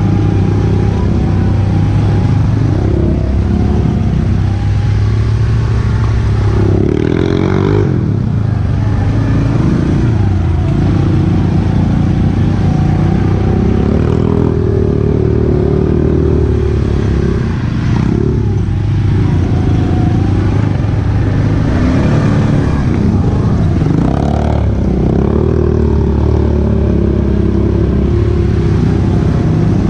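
ATV engine running close up as the quad is ridden over a rough, muddy trail, revving up and falling back with the throttle several times, with some rattling from the machine.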